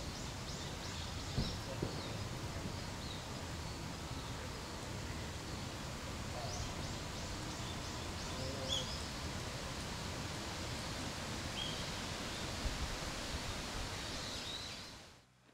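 Outdoor ambience: a steady rustling hiss with birds chirping in short runs of quick high notes, fading out just before the end.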